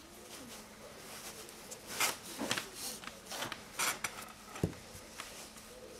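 Braided Dyneema rope and a steel push fid being handled: dry rustling and scraping as the rope tail is pushed through the rope, with a single sharp tap a little past halfway.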